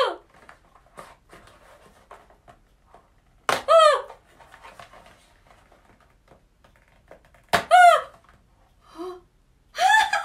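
A woman's short wordless effort sounds, three of them, each rising then falling in pitch, as she works a cardboard insert out of a box along its perforated tear line. Faint taps and rubbing of cardboard come between them.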